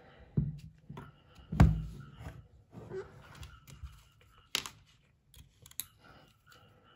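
Handling clicks and knocks of small hard parts as a red dot sight is fitted and screwed onto a pistol slide, with one sharper knock about a second and a half in.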